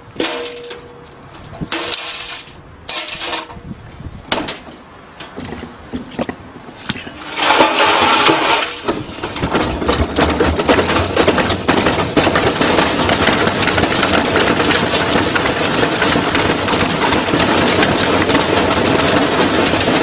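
A washing machine being run to destruction. Scattered knocks and clatters give way, about seven seconds in, to loud, continuous machine running full of rapid rattling and banging.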